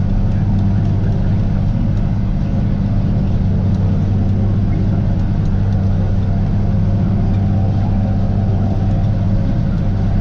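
Tractor engine and pull-type forage harvester running steadily under load while chopping standing corn, heard from inside the tractor cab as a constant low drone.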